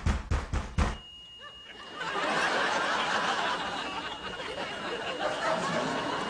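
A drum-driven music cue cuts off about a second in, and after a short lull a studio audience laughs.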